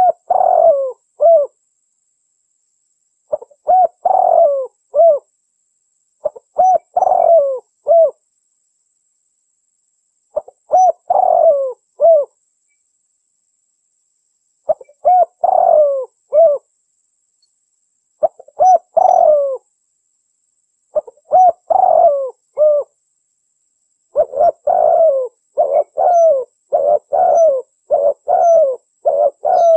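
Spotted dove (tekukur) cooing, the recorded call used as a hunting lure. It gives a short three-note coo phrase every three to four seconds, then a quicker run of coos over the last few seconds.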